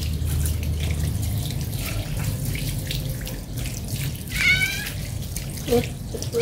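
Water from a garden hose running and splashing over a wet cat in a wire cage. The cat meows once about two-thirds of the way through and starts another meow at the very end.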